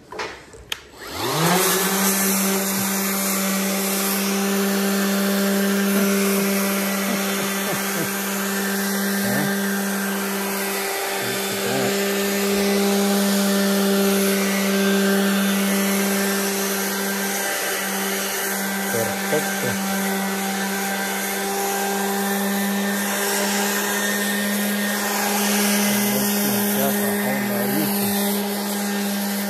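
Milwaukee M18 cordless orbital sander starting up about a second in with a quick rising whine. It then runs at a steady pitch with the hiss of its round pad sanding a painted steel beam, its pitch dipping briefly twice.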